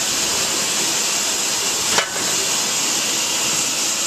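Steady hiss of steam on the footplate of GWR 4300 2-6-0 steam locomotive No. 5322, with a single sharp knock about two seconds in.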